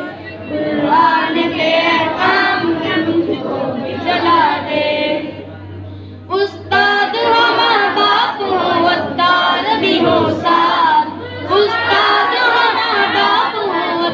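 A boy singing a devotional prayer chant into a handheld microphone, heard through a PA. His voice drops away briefly about six seconds in and comes back sharply.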